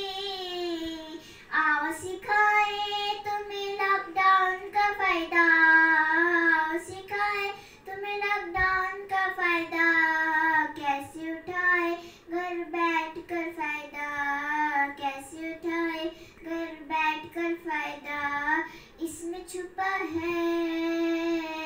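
A young girl singing solo with no accompaniment, holding long, wavering notes in phrases separated by short breaths.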